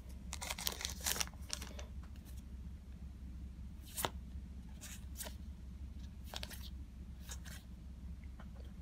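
Trading cards handled and slid off one another in the hands, giving a scatter of short paper rustles and flicks over a steady low hum.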